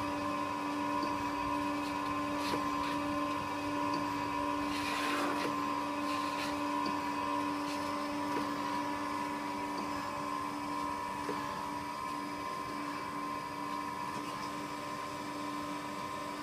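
Okamoto PSG63DX surface grinder running: a steady hum with a steady whine above it. A brief hiss about five seconds in and a few faint clicks.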